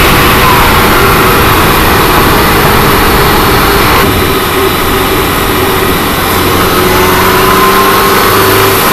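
Alfa Romeo Stelvio's 2.0-litre turbocharged four-cylinder engine running under load, heard from inside the engine bay. A thin whistle rises in pitch over the last couple of seconds.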